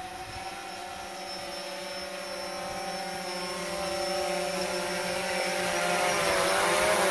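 Quadcopter drone's propellers whining with a steady cluster of tones, growing louder as it flies in close. The pitch wavers near the end as it slows and adjusts.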